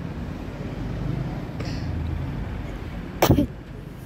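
Steady low outdoor rumble, with one short, loud burst a little past three seconds in.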